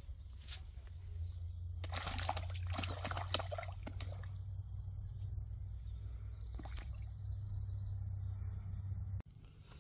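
Fish splashing and churning at the water's surface, a dense burst of splashes about two to four seconds in and a few lone splashes after, over a steady low rumble.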